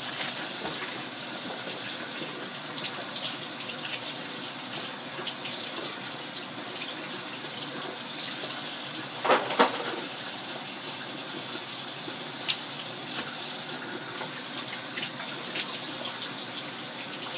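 Kitchen faucet running steadily into the sink while chicken wings are rinsed under it. A brief double knock sounds about halfway through.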